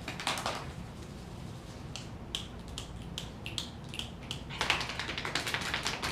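A rapid patter of sharp taps that thins to a few scattered taps in the middle, then turns dense again about two-thirds of the way in.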